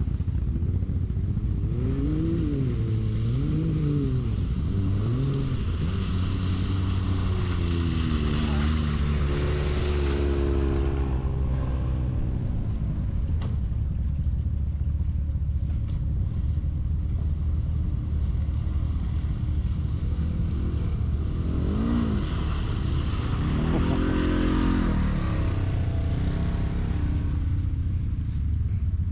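Can-Am Outlander XMR 1000 ATV's V-twin engine with a Yoshimura exhaust, running under a steady low drone. The revs rise and fall several times over the first ten seconds or so, and again a little past two-thirds of the way through.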